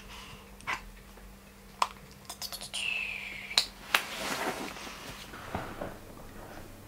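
Several sharp clicks and taps, including a quick run of them about two and a half seconds in, then a short falling tone, then soft rustling.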